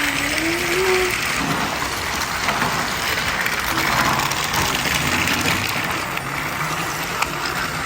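Several battery-powered Thomas and Friends TrackMaster toy train motors running together around a plastic track, a steady whirring and rattling.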